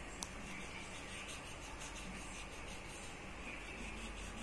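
Faint scratching of a wax crayon scribbled back and forth on paper, over a steady low hiss.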